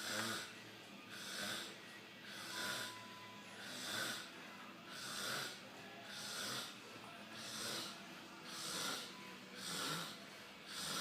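A man snoring: a noisy breath sound repeating evenly about every 1.3 seconds, nine times in a row.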